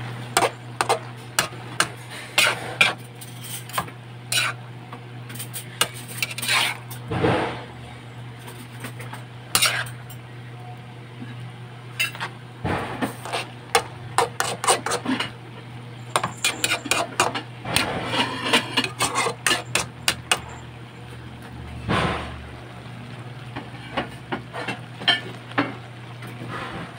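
A spatula stirring and tossing water spinach and fried tofu in a pan, with irregular clicks and scrapes against the pan in quick flurries and a light sizzle of the frying food. A steady low hum runs underneath.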